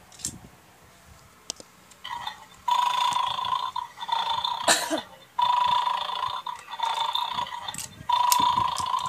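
Electronic bulldog toy from a bone-pulling game playing its recorded snoring through a small speaker: from about two seconds in, a buzzy snore sound repeats in stretches of one to two and a half seconds with short gaps between. A few sharp plastic clicks, the loudest near the middle.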